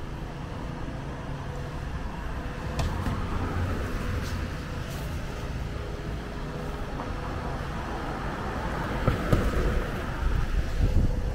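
Street traffic on a rain-wet city street: cars going by with tyre hiss on the wet road, swelling a couple of times, over a steady engine hum. Wind knocks on the microphone in low thumps near the end.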